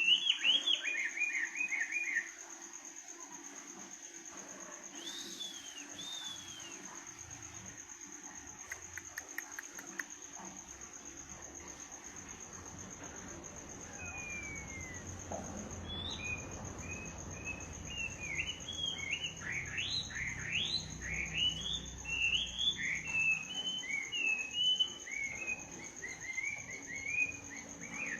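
A bird singing at night in quick runs of high chirps: a short burst at the start, then a dense, continuous run from about halfway on. Behind it runs a steady high-pitched insect trill.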